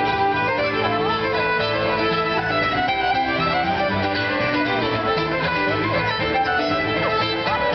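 Live Cape Breton fiddle tune: a fiddle playing a quick melody over chords and bass notes from a Yamaha CP stage piano, amplified through the stage sound system.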